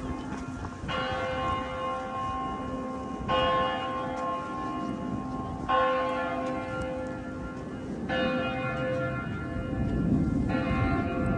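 A single large church bell tolling slowly: five strikes about two and a half seconds apart, each ringing on with the same set of overtones until the next.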